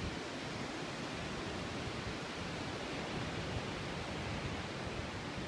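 Steady wash of ocean surf breaking on the beach below, with an uneven low rumble underneath.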